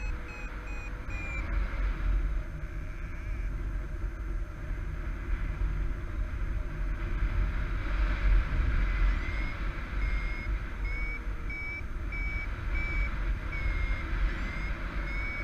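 Paraglider variometer beeping in short repeated tones, the pitch stepping up and then down, the sign that the glider is climbing in a thermal. The beeps stop about a second and a half in and return about nine seconds in, over loud wind rush on the microphone.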